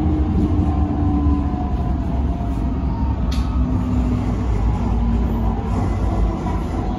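MRT train running on the Kajang line, heard from inside the carriage: a steady low rumble with faint steady hums over it, and a single click about three seconds in.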